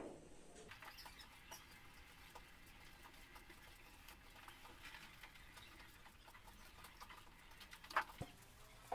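Faint scratching and patting of hands working wet cement mortar into a tile box mould, with a couple of short sharp knocks near the end.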